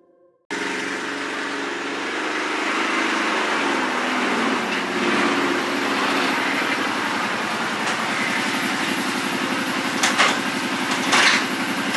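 Kawasaki Teryx 750 side-by-side's V-twin engine running as the machine drives slowly in, starting abruptly. Its pitch wanders over the first few seconds, then it settles to a steady low-speed run. Two short sharp noises come near the end.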